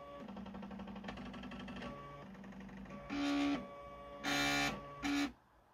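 Stepper motors of a cheap desktop CNC laser engraver humming with fine rapid ticking as the head rasters over the work, then three short, louder whirring bursts in the second half.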